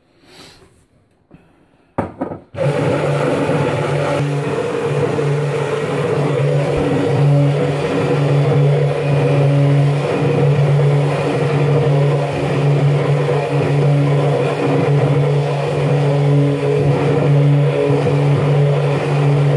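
Electric blender switching on about two and a half seconds in and running steadily, whipping garlic, egg, lemon juice and oil into an aioli emulsion.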